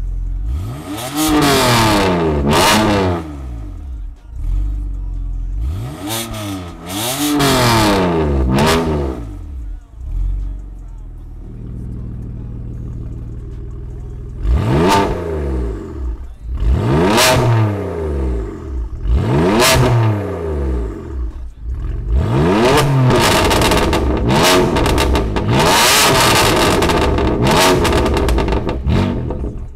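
BMW M4 Competition (F82) twin-turbo straight-six revved while standing, through an iPE valved exhaust. Groups of sharp rev blips each rise and fall, with a few seconds of steady idle about halfway through, then a run of longer, higher revs near the end. The exhaust valves are on automatic at first and switched open for the later revs.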